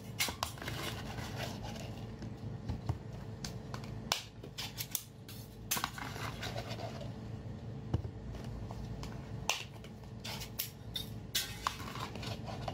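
Sauce-glazed crayfish tails tipped out of a glass jar onto a plate: a run of wet, sticky clicks and small taps as the pieces slide out and drop, with a few sharper knocks. A steady low hum underneath.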